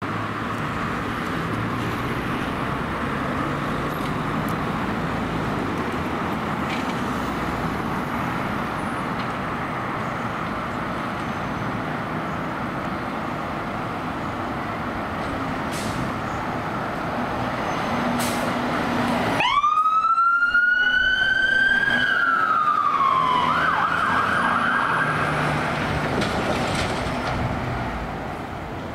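Dennis Sabre fire engine's siren sounding over traffic noise. About two-thirds of the way through it grows loud, with a wail that rises sharply, holds, falls, and then switches briefly to a fast yelp.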